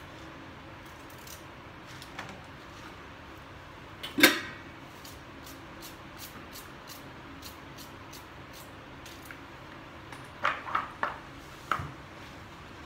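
Kitchen handling sounds while vegetables are prepared: one loud clank with a short ring about four seconds in, faint light ticks after it, and a quick run of three or four knocks near the end, over a steady low room hum.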